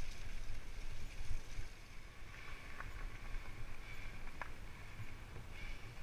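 Fat bike rolling over a bumpy dirt trail: a steady rumble of tyres and bike rattle, with a couple of sharp knocks about halfway through.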